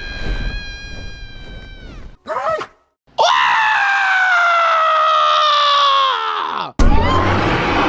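A steady high tone drops away with a quick downward slide about two seconds in. After a short pause, a loud scream slides steadily down in pitch for nearly four seconds, and a second, harsher scream follows straight after it near the end.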